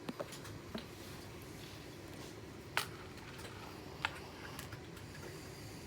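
A few scattered light clicks and taps over a faint steady room hum, the sharpest click about three seconds in.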